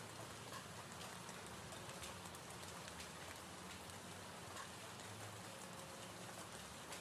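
Recorded gentle rain ambience: steady rainfall with many small scattered drop ticks, played as a background track.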